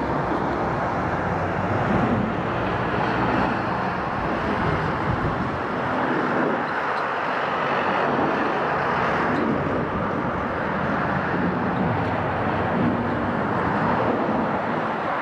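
The twin jet engines of a Boeing 777-200ER make a steady, loud rushing noise as the airliner rolls out along the runway after touchdown.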